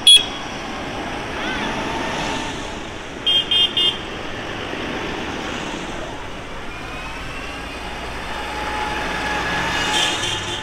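Tractors running as they pass in procession, with a horn tooting three quick times about three seconds in and one short loud toot right at the start.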